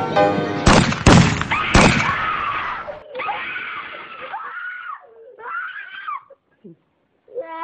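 A boy screaming, loud and harsh for about two seconds, then quieter wavering vocal sounds that fade out.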